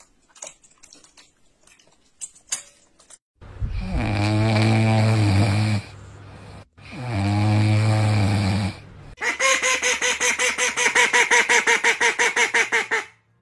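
A puppy snoring: two long, low snores about three seconds apart. Then a duck calling in a rapid, even string of quacks, about six a second, for some four seconds.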